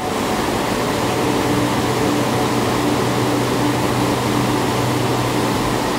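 Whitewater river rapids rushing over rocks: a loud, steady rush of water.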